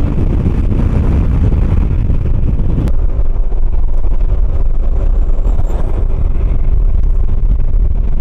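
Motor scooter riding at speed: heavy wind rush over the microphone with the 125 cc scooter engine droning steadily underneath; about three seconds in a steady hum rises out of the noise and holds.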